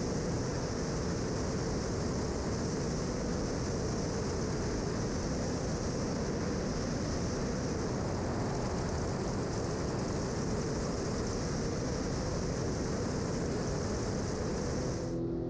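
Steady rush of airflow over a camera mounted on the outside of a Velocity Twin light aircraft in flight, with engine noise beneath it, unchanging throughout.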